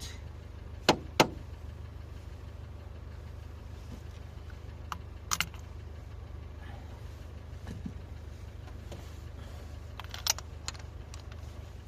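Opel car engine running at a steady low idle after a new spark plug has been fitted, with a few sharp clicks over it, two close together about a second in; the engine stops near the end.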